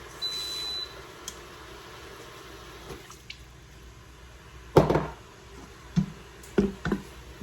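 A high beep from the Instant Pot's control panel near the start, then chicken stock splashing into the hot inner pot to deglaze it, with a few sharp knocks against the pot.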